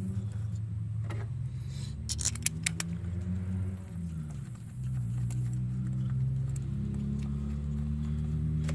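Light metallic clinks of small bolts and hand tools, a short cluster about two seconds in, as coil-pack hold-down bolts are started by hand on the engine. Under them runs a steady low drone whose pitch wavers slowly.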